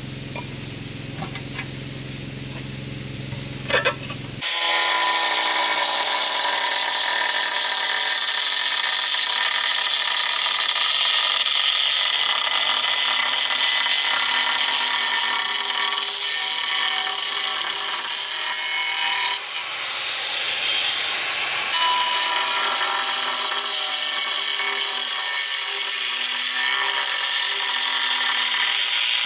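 Angle grinder with a cutting disc slicing a curved groove into a ceramic floor tile: a loud, steady, high-pitched grinding whine that starts abruptly about four seconds in and dips briefly about two-thirds of the way through. Before it, a few light taps.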